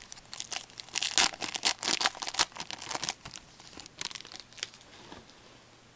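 A trading-card pack wrapper being torn open and crinkled in the hands. It makes dense, irregular crackling, loudest in the first three seconds and dying away after about five.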